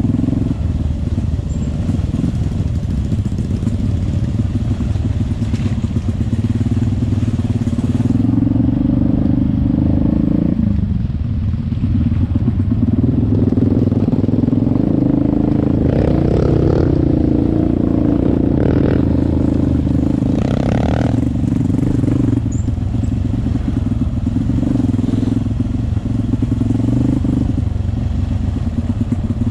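Trail motorcycle engine running close to the microphone as the bike rides a rough dirt track, its revs rising and falling with the throttle. The revs drop briefly about ten seconds in, then climb again.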